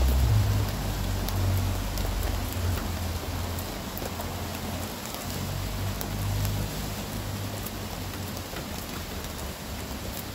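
Steady rain falling, with scattered sharp drip ticks. A low rumble comes and goes under it and fades away after about seven seconds.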